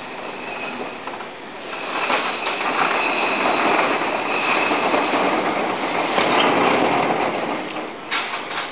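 Corrugated steel roll-up garage door being lowered, its slats rattling steadily as it rolls down, with a sharp knock near the end as it closes.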